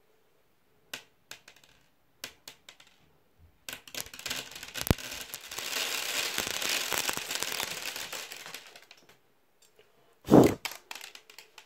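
A few scattered clicks, then a shower of small plastic fuse beads pouring down and clattering as they bounce and scatter for several seconds. One loud thump near the end.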